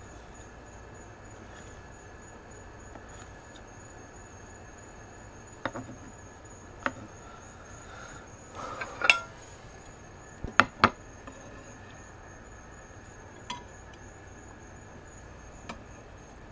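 A few sharp knocks and a short clatter, loudest around the middle, as a kitchen knife and a ceramic plate are handled on a plastic cutting board. Under them runs a steady high cricket trill.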